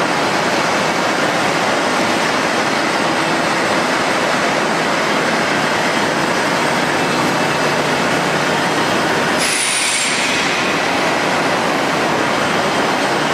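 Steady, dense mechanical noise of a welded-pipe (ERW tube) mill line running. About nine and a half seconds in the sound changes abruptly, with a short high whine falling in pitch.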